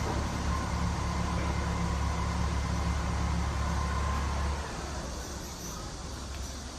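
Steady low engine rumble that falls away about four and a half seconds in.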